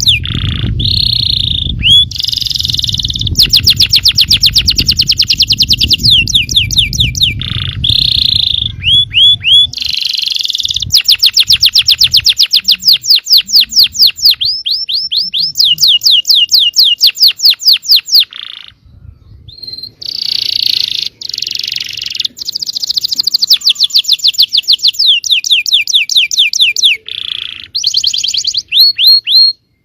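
Yellow domestic canary singing a long song of fast trills and rolls, runs of rapidly repeated notes switching from one phrase to the next, with a brief pause about two-thirds through. A low background rumble sits under the song for the first third.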